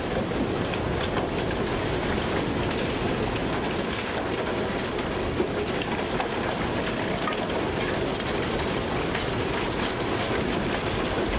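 Recycling plant machinery running: conveyor belts and a rotating mesh drum screen with waste tumbling and rattling inside it, a steady, dense clatter.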